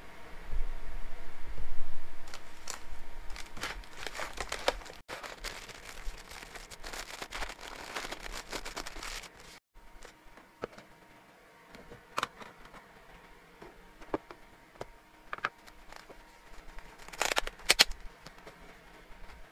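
Plastic treat packaging being handled: crinkling and crackling of the wrappers with light clicks and taps against hard plastic containers, heavier with a low bumping rumble at first and sparser later, with a louder crinkle burst near the end.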